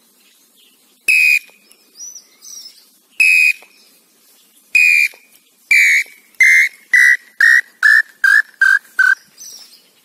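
Long song of a male pé-roxo tinamou: about ten loud whistled notes, spaced widely at first, then coming faster and shorter and dropping in pitch toward the end, the call a male gives to announce his location. Fainter, higher bird calls sound between the first few notes.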